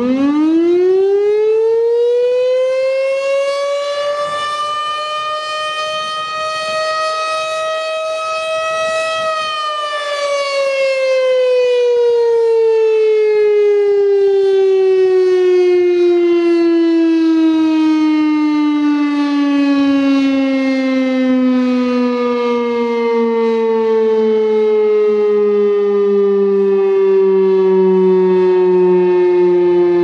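Federal Signal STH-10 electromechanical warning siren sounding its noon test: it winds up quickly to a high, steady wail, then about nine seconds in starts a long, slow wind-down, its pitch gliding steadily lower.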